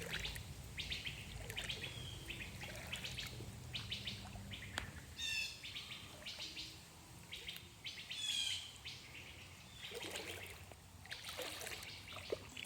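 Songbirds chirping repeatedly, with two quick trilled phrases about five and eight seconds in.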